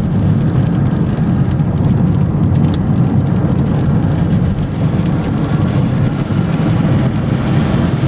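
Car driving along a road, steady engine and tyre noise heard from inside the cabin.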